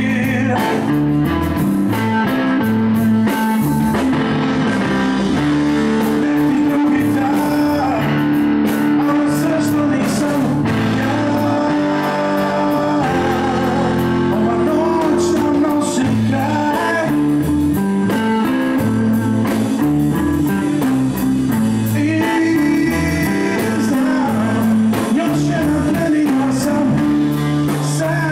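A live blues band playing: a man sings over a Stratocaster-style electric guitar, electric bass and a drum kit with cymbals keeping time.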